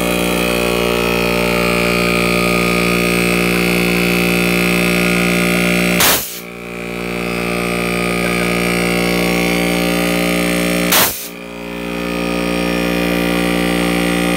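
Overhauled Danfoss three-phase compressor running on single-phase power through capacitors, with a loud steady electric hum. About six seconds in, and again some five seconds later, its relief valve pops off with a sharp burst, venting excess pressure.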